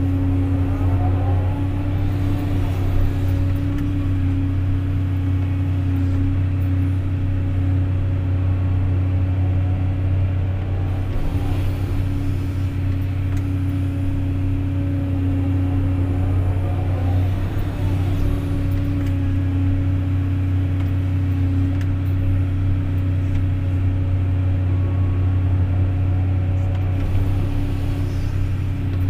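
Excavator's diesel engine running steadily at work: an even, loud drone with a strong low hum and a higher steady tone, shifting faintly in pitch a few times.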